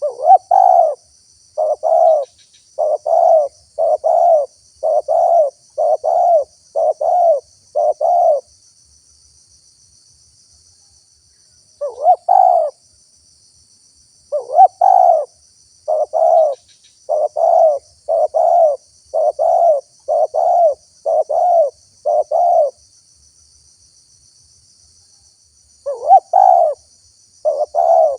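A spotted dove cooing loudly in runs of about eight to ten evenly spaced notes, with pauses of a few seconds between runs. Insects chirr faintly and steadily behind it.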